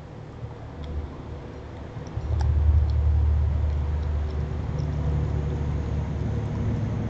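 A low engine-like rumble, as of a motor vehicle running, that grows suddenly louder about two seconds in and stays up. A few faint high clicks sound over it.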